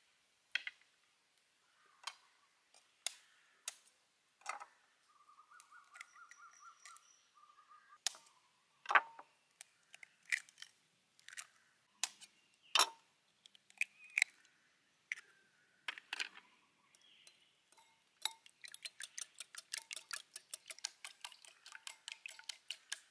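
Eggs being cracked one at a time over a ceramic bowl with the back of a kitchen knife: sharp separate taps and shell cracks every second or so. For the last few seconds the eggs are beaten in the bowl, a quick even run of clicks several a second.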